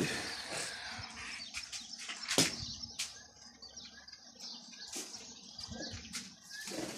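A pigeon's wings flapping as it is tossed up by hand and flies off, followed by a few sharp clicks, the loudest about two and a half seconds in.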